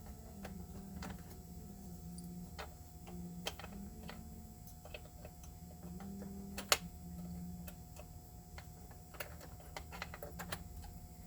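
Irregular light clicks and taps of small metal parts being handled and fitted on a toy train accessory, with one sharper click about two-thirds of the way through, over a low steady hum.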